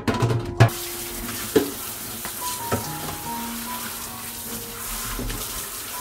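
Kitchen faucet running water onto white perforated plastic baskets in a stainless steel sink as they are rinsed. The water comes on a little under a second in, after a couple of sharp plastic knocks as the baskets are handled. Soft background music plays underneath.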